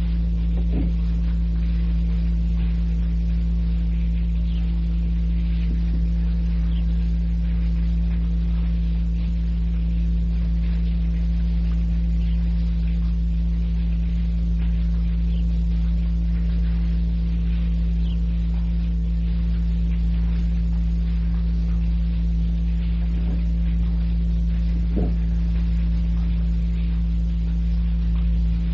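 Steady low electrical mains hum with several overtones, over an even tape hiss, from an old cassette recording. A couple of faint brief sounds come through near the end.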